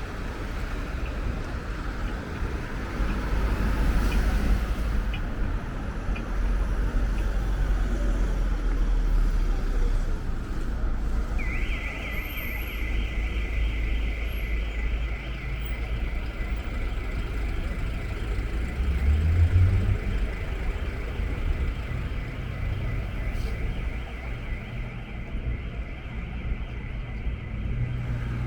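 City street traffic: a motor vehicle's engine rumbling low and steady close by. About twelve seconds in, a steady high-pitched hiss or whine starts and runs on almost to the end.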